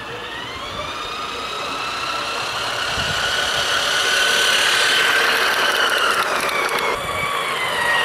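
Playmobil 5258 radio-controlled freight train running on plastic track: the locomotive's electric motor and gears give a steady whine that drifts slowly in pitch and grows louder as the train approaches, loudest about halfway through.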